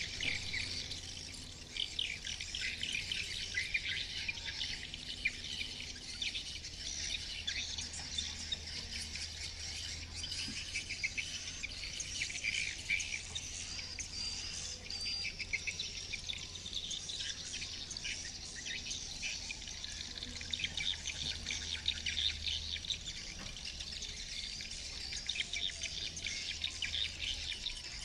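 Swiftlet calls: dense, continuous twittering of many rapid overlapping chirps. This is the swiftlet-calling sound used to lure swiftlets to a swiftlet house. A steady low hum sits underneath.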